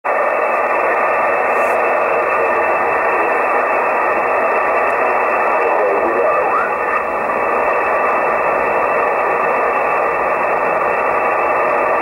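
Shortwave static from a software-defined radio tuned across the 20-metre amateur band in upper sideband: a steady, narrow hiss with nothing above the receive filter. About six seconds in, a brief rising whistle sweeps through as the tuning moves.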